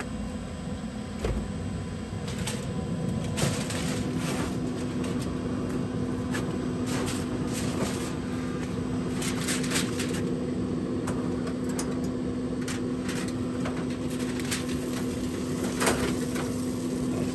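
Steady motor hum from a running Pit Boss Copperhead pellet smoker, with scattered clicks, clatter and rustling as its door is opened, the racks handled and aluminium foil crinkled.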